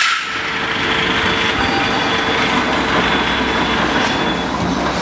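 Roll-forming machine for photovoltaic mounting brackets running: a steady mechanical noise from its motors, gearboxes and forming rollers, with faint steady tones over it.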